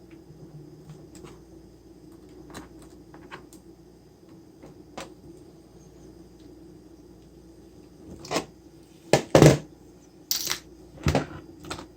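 Hard parts and tools being handled on a workbench: scattered light clicks and taps, then several loud clanks and knocks in the last four seconds.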